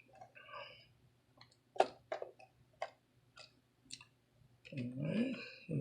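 Scattered light clicks and taps as wires are handled and worked loose at an electrical fixture, about six separate clicks. A brief mumbled voice comes near the end.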